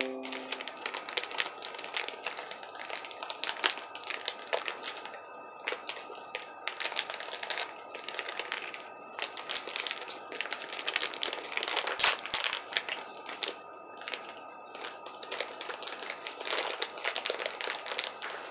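Plastic candy packaging crinkling and crackling as it is handled and opened by hand, an uneven run of rustles and crackles.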